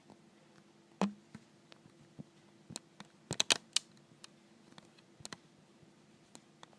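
Small clicks and taps from a Siemens MC60 mobile phone being handled: a single knock about a second in, then a quick run of sharp clicks around the middle, with lighter ticks scattered between.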